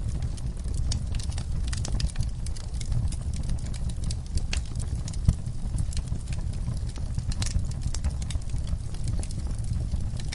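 Wood campfire crackling, with irregular sharp pops and snaps over a low steady rumble; one louder pop about five seconds in.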